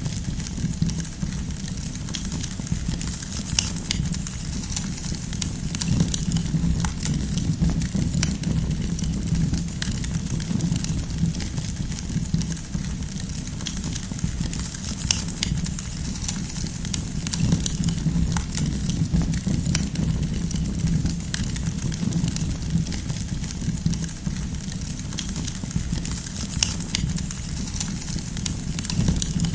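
Wood fire burning with a steady low rumble of flames and frequent irregular sharp crackles and pops from the firewood.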